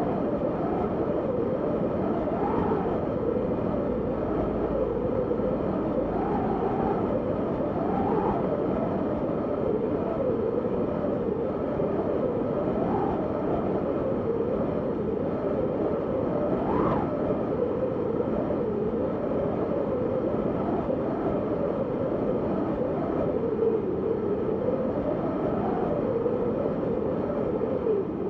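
Wind blowing steadily, with a howling whistle that swells up in pitch and falls back every few seconds.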